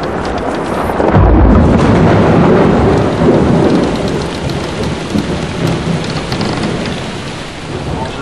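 Thunder rolling: a loud low rumble swells about a second in and slowly fades over the following seconds, over steady rain from a passing squall.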